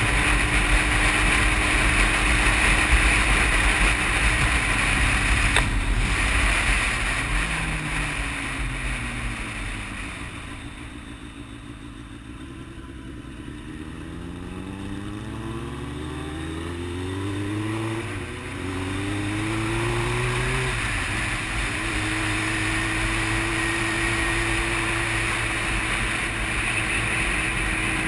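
Sport motorcycle engine heard from the rider's helmet with heavy wind rush: cruising, then slowing with falling engine pitch to a low, quieter running about halfway through. It then accelerates away, the pitch rising and dropping back at each upshift two or three times, and settles into steady cruising with the wind noise returning.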